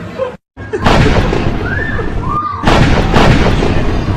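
Broken coin-operated clock kiddie ride blaring loud, harsh crackling noise, with sudden loud surges about a second in and again about three seconds in, and a brief complete cutout just before the first. The title blames lightning damage for the noise.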